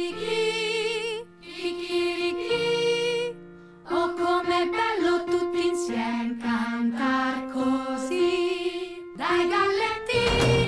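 A woman singing a slow melody with a wavering vibrato on the held notes, over piano accompaniment, in phrases broken by short pauses.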